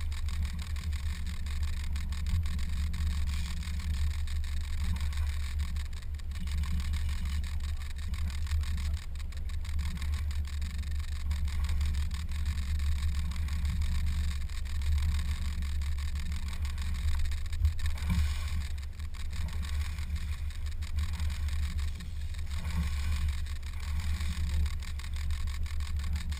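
Boat motor running steadily, a continuous low rumble.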